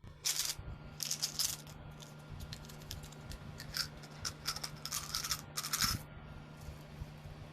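Plastic candy wrappers crinkling and rustling in repeated bursts as sweet packets are handled and torn open, over a low steady hum. The sound thins out about six seconds in.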